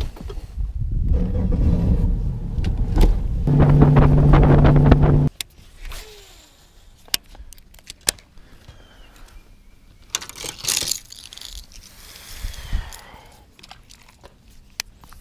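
Bass boat running at speed: engine and wind noise with a steady hum, cutting off abruptly about five seconds in. Then much quieter, with scattered clicks and rustles of a baitcasting reel being handled and cast.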